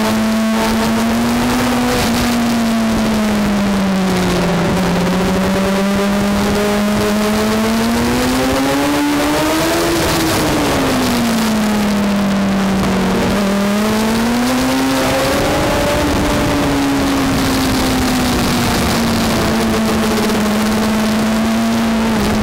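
Racing engine heard onboard at high revs, its pitch sliding down into the bends and climbing again on the exits several times, over steady wind and tyre rush.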